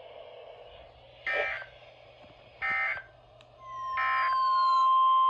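Emergency Alert System broadcast tones: three short warbling SAME digital data bursts about a second and a half apart, then the steady 1050 Hz NOAA Weather Radio alert tone coming in about three and a half seconds in. Faint falling tones are heard alongside the alert tone.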